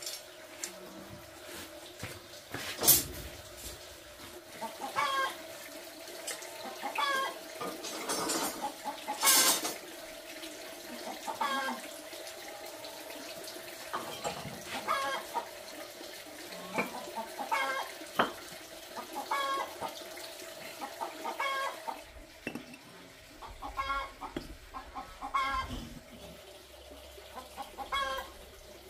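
Chickens clucking over and over. Two sharp knocks stand out, about three seconds in and again about nine seconds in.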